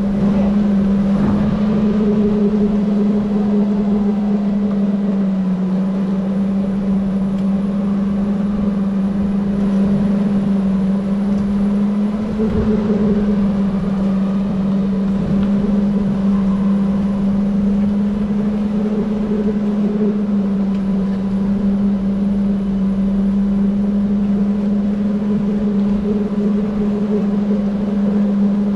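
Electric go-kart's motor whining at a near-steady pitch, dipping and rising only slightly, over a low rumble of the kart on the track.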